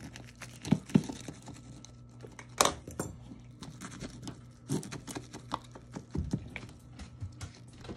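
Scattered light clicks, taps and scrapes of a serving utensil against a glass baking dish of baked cheese-topped potatoes, a few of the taps sharper than the rest.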